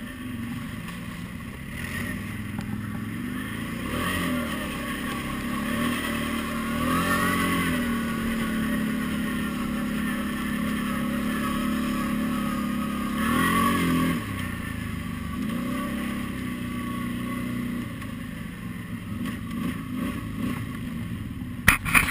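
Quadzilla X8 quad bike's V-twin engine running under way, its pitch rising with the throttle several times, about 4, 7 and 13 seconds in. A few sharp knocks near the end.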